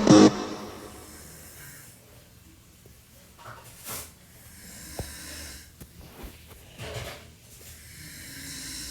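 An elderly man snoring in his sleep: soft breathy snores recurring every second or two.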